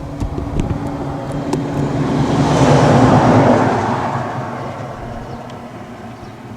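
A motor vehicle passing by on the road: its sound grows louder to a peak about three seconds in, then fades away.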